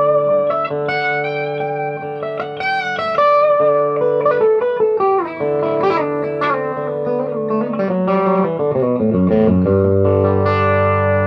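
Electric guitar played through a Denver Amp Works Starfire tube combo amp, a 40-watt amp with parallel 6V6 output tubes driving Fluxtone AlNiCo Blue and Creamback speakers. Single-note lines with bent notes and held notes, then a run of notes stepping down in pitch near the end.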